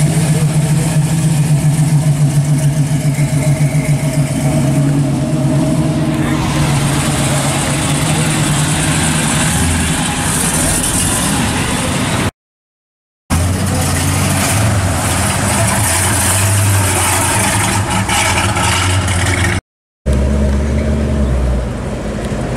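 Classic American muscle cars driving slowly past one after another, each engine's exhaust rumbling as it idles and pulls away. The sound drops out to silence twice, briefly, where the cars change.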